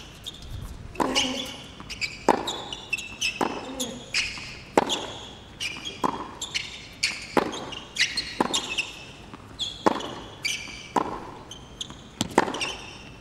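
Tennis rally on a hard court: racket strikes on the ball about once a second, back and forth, for about a dozen shots. Sneakers squeak on the court surface between shots.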